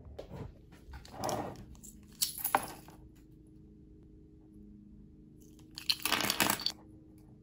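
Small plastic pencil-lead refill cases (MonAmi ML-Clean 0.5 mm) being handled and slid into a frosted plastic storage box: plastic rattling and clicking in three short spells, about a second in, about two seconds in, and near the end.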